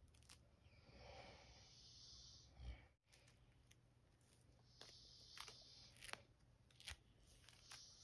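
Faint scratching of a small metal tool across a dandruff-flaked scalp and short, coarse hair. One long scraping stretch is followed, after a brief gap, by a run of shorter scrapes with about five sharp ticks.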